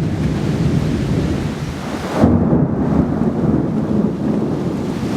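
Thunder rumbling over steady rain, with a sharper, louder crack of thunder about two seconds in.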